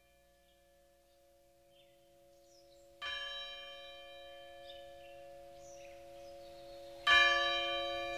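Bell tones struck and left to ring: a louder strike about three seconds in and the loudest about seven seconds in, each holding several steady pitches that fade slowly.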